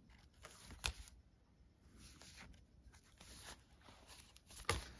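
Faint rustling of thick paper pages of a handmade junk journal being turned by hand, with two sharp clicks, one about a second in and a louder one near the end.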